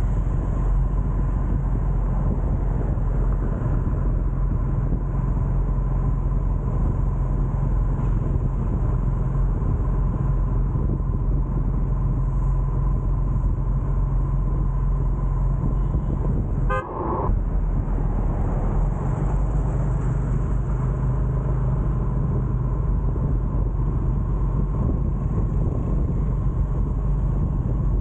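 Steady engine hum and road noise from riding along a city street among motorbikes and cars, with a brief break in the sound about two-thirds of the way through.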